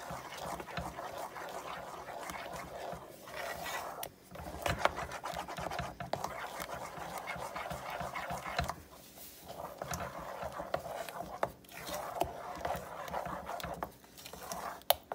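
Wooden spoon stirring a thick chocolate and peanut butter mixture in a metal saucepan: a continuous wet scraping with a few short pauses and a sharp knock near the end.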